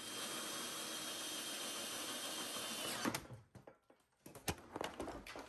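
Power drill running steadily for about three seconds while drilling into a plastic 5-gallon bucket, then stopping. Scattered knocks and clicks of the bucket and tools being handled follow.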